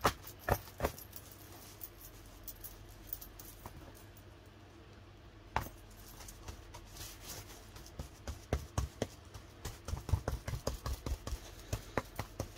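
Irregular light taps and clicks of hand work on a cardboard box, from a glue brush dabbing medium over napkin pieces. There are a few louder knocks at the start, and the taps come faster and thicker in the second half.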